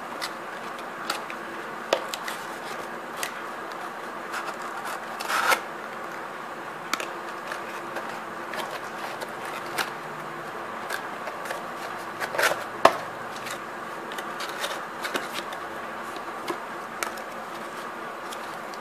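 Cardboard box and paper packaging handled by hand: scattered light clicks, taps and scrapes, with louder rustles about five seconds in and again around twelve seconds, over a steady background hum.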